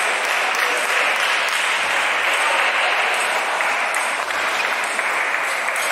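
Steady, dense noise of a busy table tennis tournament hall: ping-pong balls clicking at many tables blend with the crowd into one even hiss.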